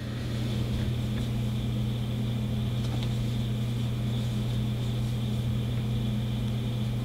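Steady low electrical hum with a faint higher whine above it, unchanging: the constant background noise of the room or the recording equipment.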